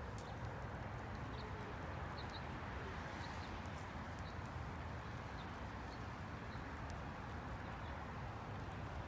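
Quiet outdoor background: a steady low rumble with faint short high chirps about once a second and scattered light clicks.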